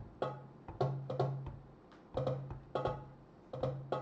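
A looped electronic beat made from darbuka drum samples: clusters of sharp hand-drum hits repeating in a busy pattern over a sustained low note.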